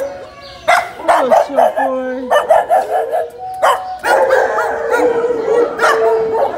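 Dogs whining and howling, with held, sliding cries overlapping, quick runs of short yips, and a few sharp barks.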